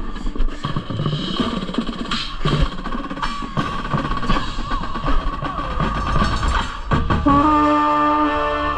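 Drum and bugle corps playing: busy drumline and percussion, then about seven seconds in the brass come in on a loud, held chord over the drums.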